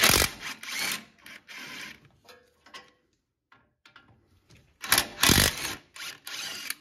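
Impact wrench with a 17 mm socket hammering the two front caliper bracket bolts loose: a loud burst at the start, and another about five seconds in, with lighter rattling between.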